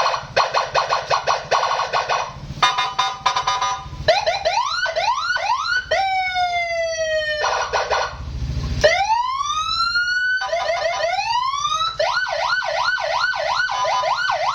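Custom police-escort (patwal) siren fitted to a Honda ADV scooter being tested, stepping through several tones: rapid stuttering pulses, then repeated quick rising yelps, a falling sweep, one long rising wail about two thirds of the way in, and a fast rise-and-fall wail near the end.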